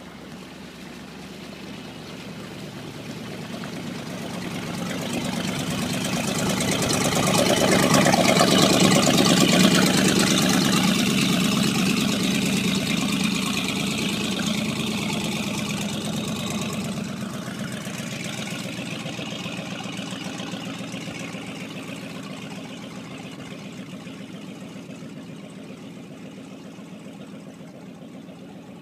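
Runabout motorboat's engine running steadily as the boat comes in, passes close and heads away. It grows louder to a peak about a third of the way in, then slowly fades.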